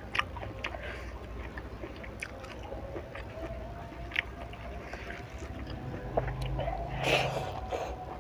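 Close-miked eating of crispy fried sepat fish by hand: scattered small crackles and clicks as fingers pick at the fish, with biting and chewing, and a louder bite about seven seconds in.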